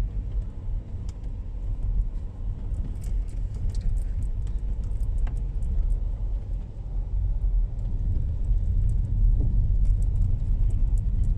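Front-wheel-drive SUV driving over a rough, bumpy dirt road. The tyres and suspension give a steady low rumble, with scattered knocks and rattles as the car jolts along.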